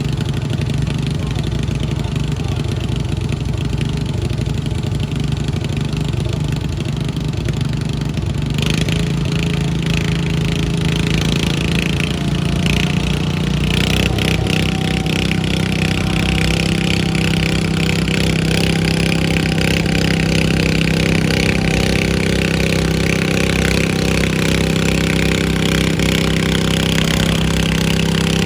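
Engine of a pulling lawn mower running hard. It revs up about a third of the way in, rises again near the middle, and then holds at high revs.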